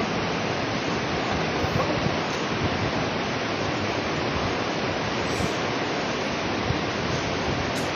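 Steady rushing noise, loud and even throughout, with no breaks or rhythm.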